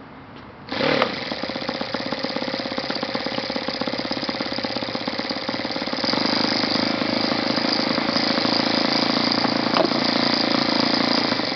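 A YS FZ70-S supercharged four-stroke glow engine (0.70 cu in) on a test stand, turning a 13x5 propeller, is spun with an electric starter and catches at once, just under a second in. It then idles steadily, at about 2,000 to 2,200 RPM, and runs a little louder from about six seconds in.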